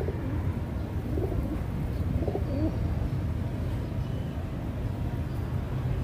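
Rock pigeons cooing, several short soft coos, over a steady low rumble.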